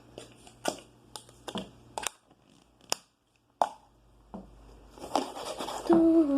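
Handling noises while mixing homemade slime: scattered sharp clicks and knocks of containers and utensils, with some crinkling, and a brief lull about two to three seconds in.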